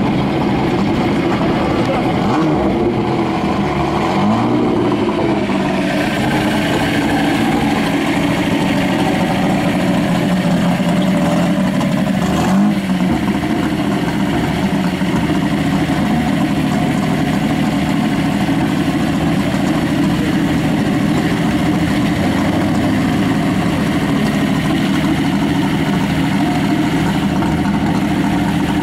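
A car engine idling steadily, with voices around it. A brief knock about twelve seconds in.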